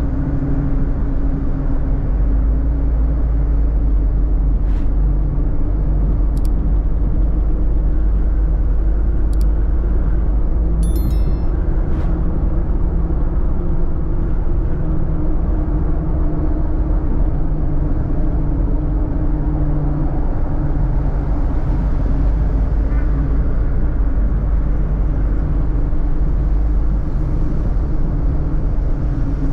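Steady low rumble of a car's engine and tyres heard from inside the cabin while driving, with a few faint clicks in the first half.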